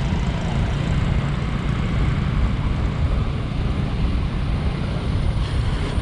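Wind buffeting the microphone of a camera mounted on a moving motor scooter, a steady low rumble with the scooter's engine and road noise beneath it.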